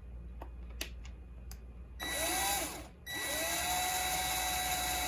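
Power drill boring a hole in a Traxxas TRX-4 locking differential part. A few light clicks are heard first, then the drill spins up about two seconds in, stops briefly, and runs again at a steady pitch.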